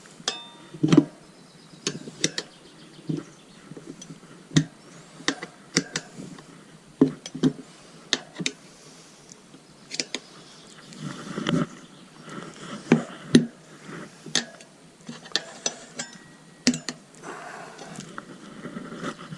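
Irregular metal clinks and knocks, some with a short ring, from tyre levers working against a motorcycle wheel rim as a tyre bead is levered on by hand.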